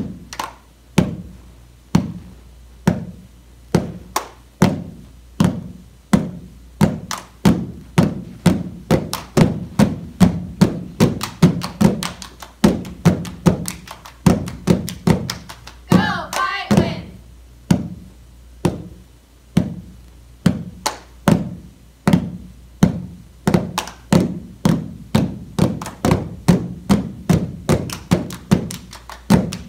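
A group hand-clapping rhythm: claps alternating with hand slaps on a padded gym mat, steady at first and getting quicker and busier in the second half. A brief voice sounds about halfway through.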